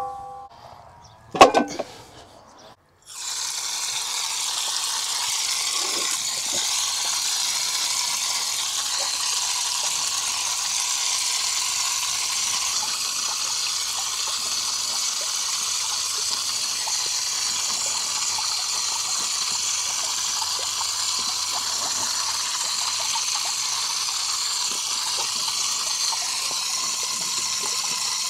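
A sharp knock with a brief ring about a second and a half in, then from about three seconds a steady spray of running water splashing over a skinned bull's head and the wet concrete around it.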